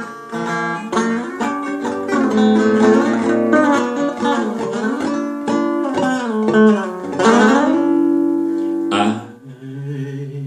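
Blues music: a guitar playing an instrumental passage between sung lines, its notes bending and sliding in pitch. A voice comes back in near the end.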